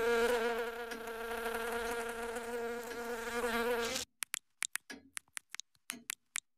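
A fly's buzzing, a steady pitched hum with wavering overtones, as a cartoon sound effect. About four seconds in it cuts off abruptly, and a scatter of tiny sharp clicks and ticks follows.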